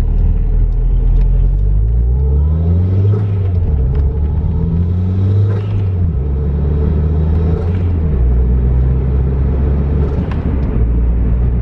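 Toyota MR2's engine pulling through the gears on a drive. Its pitch climbs several times and drops back, then holds steady.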